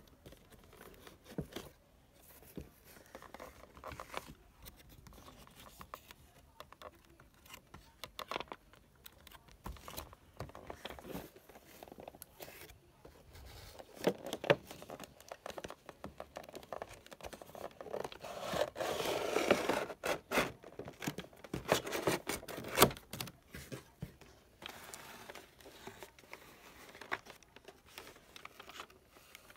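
Cardboard display box and its clear plastic window being handled and pulled open: scattered taps, scrapes and crinkles of cardboard and plastic. The loudest part is a longer stretch of scraping about two-thirds of the way through.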